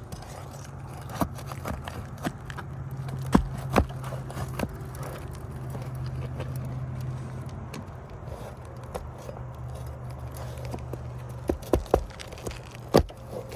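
Metal roof snake prying a roofing nail out from under asphalt shingles: scattered scrapes and sharp knocks, with a cluster of knocks near the end, over a steady low hum.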